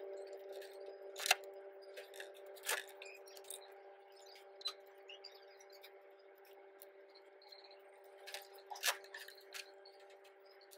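Scattered sharp metallic clicks and clinks of pliers and a screwdriver working on a Yamaha RX100 two-stroke engine's crankcase, over a steady hum.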